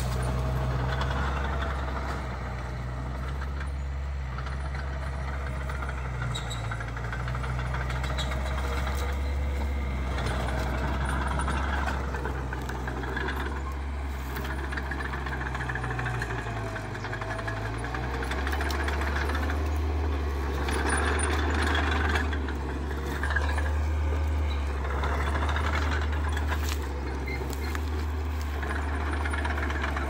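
Small crawler bulldozer's diesel engine running under load as it pushes soil with its blade: a steady low drone whose note changes a little over halfway through.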